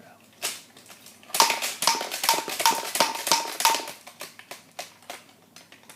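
B-daman toy marble shooter firing marbles: a quick run of about eight sharp plastic clicks, roughly two or three a second, followed by smaller scattered clicks as the marbles land and roll.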